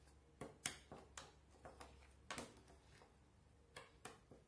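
Metal spoon stirring a dry mix of coarse sugar, cocoa powder and cornstarch in a small clear dish, with scattered faint clicks and taps as the spoon knocks the dish's sides.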